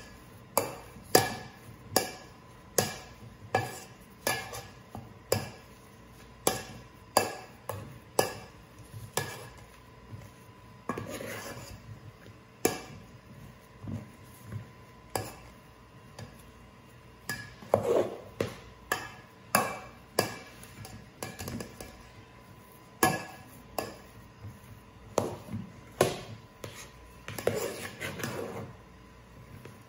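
Perforated metal skimmer mashing boiled potatoes in a stainless steel pot: repeated metal knocks against the pot, about one or two a second, with a few longer scrapes.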